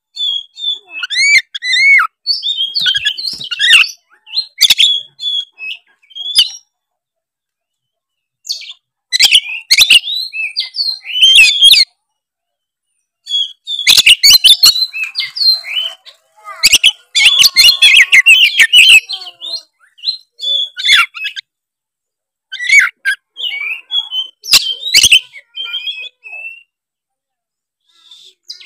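Oriental magpie-robin (kacer) singing in full, energetic song: fast phrases of varied whistles, chirps and harsh clicking notes, in bursts of a few seconds broken by short silences.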